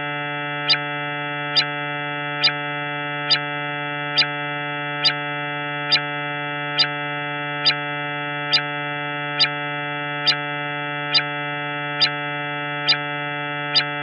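Synthesized space-sound drone, presented as the 'sound' of Jupiter's moon Himalia: a steady buzzing tone rich in overtones, with a sharp tick at an even pace a little faster than once a second.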